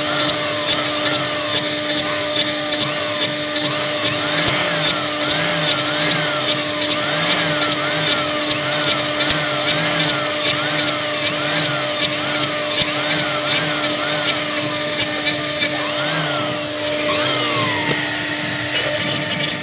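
CNC router running: a steady motor hum with a motor whine that rises and falls in pitch over and over as the axes speed up and slow down, and regular sharp ticks through it.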